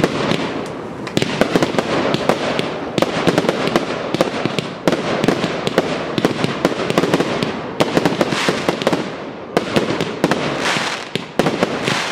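Aerial fireworks display: shells bursting in quick succession, a dense run of overlapping bangs and pops several times a second with no pause.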